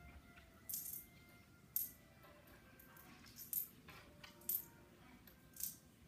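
Coins clinking: about five separate sharp metallic clinks, irregularly spaced roughly a second apart, some with a short ring after.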